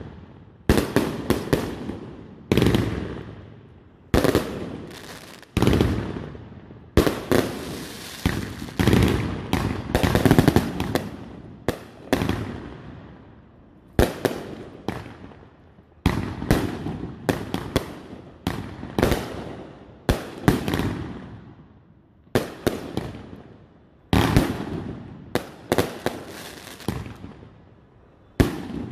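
Consumer 500g fireworks cake firing a run of shots that burst overhead: sharp bangs coming irregularly, about one or two a second with short pauses, each followed by a rolling echo that fades away.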